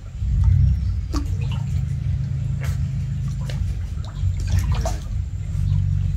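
Water splashing and lapping as otters swim and dive in a pond, over a steady low rumble. A few brief sharp sounds come through, about a second in, near the middle and toward the end.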